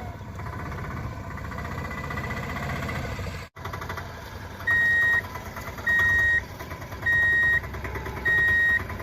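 Vehicle engine running, with a brief dropout about three and a half seconds in. From about five seconds in, a reversing alarm sounds four steady high beeps, each about half a second long, roughly every 1.2 seconds.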